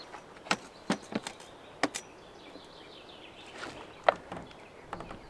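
Gear being handled as a tarp awning is taken down from a pickup truck: a scattered run of light clicks and knocks, the sharpest about four seconds in.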